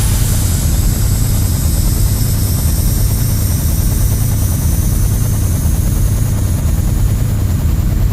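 Designed science-fiction spaceship sound effect: a loud, steady low rumble that flickers unevenly, under a thin high whine that rises slowly in pitch.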